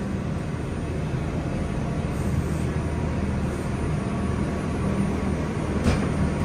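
Steady rumble and low hum of an R142 subway car in motion, heard from inside the car, with one brief knock near the end.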